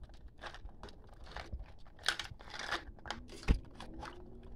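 Metal kitchen tongs clicking and scraping against crab-leg shells and the pot as the legs are shifted around, the shells crunching and knocking together in irregular bursts. One sharper knock about three and a half seconds in.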